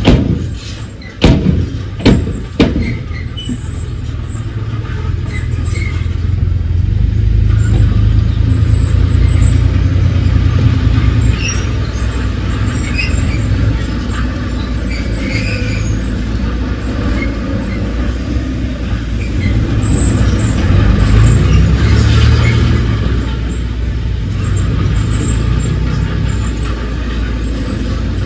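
Heavy earthmoving machinery with its diesel engine running under load, a steady deep rumble that swells and eases, with a few sharp metallic knocks near the start and scattered small clanks and squeaks.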